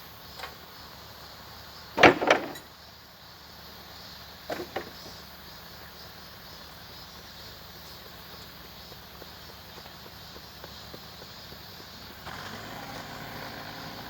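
Construction machinery engine running steadily at a repair site, with a loud knock about two seconds in and a smaller double knock a couple of seconds later. The engine grows louder near the end.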